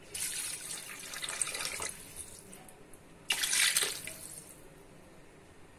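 Water being poured into a large pot of chicken gravy, in two pours: a long one at the start and a shorter one about three seconds in. This is the 3 litres of water added to the pot for cooking the rice of a chicken tahari.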